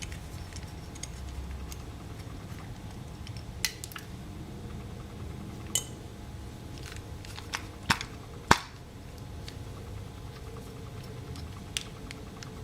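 Metal parts and hand tools clinking and knocking every second or two, the loudest knock about eight and a half seconds in, over a low steady hum.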